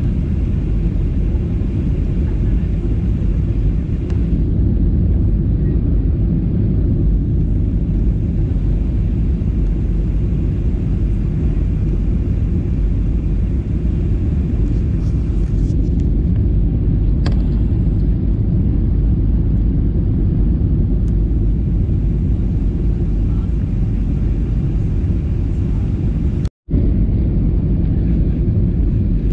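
Airliner cabin noise: a steady low rumble of engines and airflow heard from inside the cabin. It cuts out to silence for a moment about three seconds before the end.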